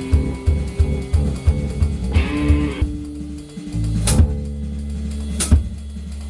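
A live rock jam of electric guitar, bass guitar and drums. A steady low beat drives the first half, then the band holds long low notes, with two sharp drum hits in the second half.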